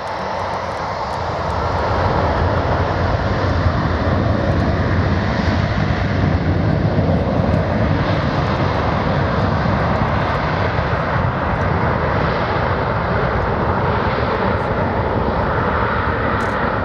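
Boeing 737's twin jet engines spooling up to takeoff power for the takeoff roll. The engine noise grows louder about two seconds in, then holds steady as the aircraft rolls away.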